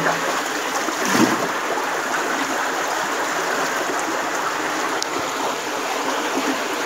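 Stream water running steadily, a constant rushing hiss, with a brief bump of handling noise about a second in.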